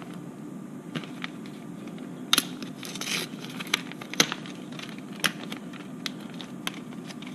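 A clear plastic resealable packaging bag being handled and opened, crinkling, with a paper insert slid out of it. The sound comes as scattered sharp crackles and clicks rather than a continuous rustle.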